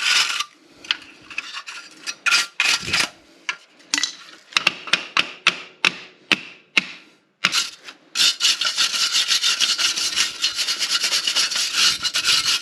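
Scraping and scrubbing on the metal gas burners of a Heil furnace, cleaning dust out of them: uneven strokes at first, then fast, steady back-and-forth scrubbing from about eight seconds in.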